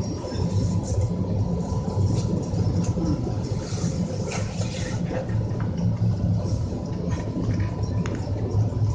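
Cab interior of a CNR electric multiple unit running along the track: a steady rumble of the moving train, with scattered clicks and a faint steady high tone.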